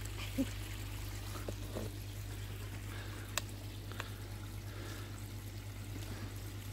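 Water pouring steadily from a Bakki shower's outlet chute into a koi pond, over a low steady hum, with two light clicks a little past the middle.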